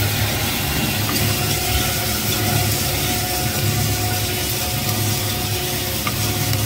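Grain roasting machine running: a steady low motor hum under a continuous hiss of Job's tears and sesame seeds being stirred and roasted in the hot pan.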